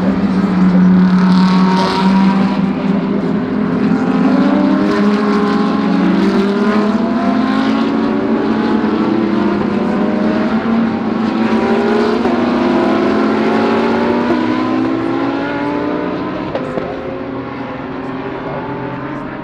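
Several GT3 race car engines accelerating hard together, each climbing in pitch and dropping back as it shifts up through the gears, overlapping as a pack of cars passes; the sound eases off over the last few seconds.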